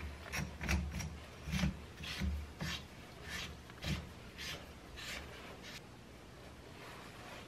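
A motorcycle rear shock absorber being handled and screwed together by hand: a run of short rubbing and scraping strokes with dull bumps, going quieter after about six seconds.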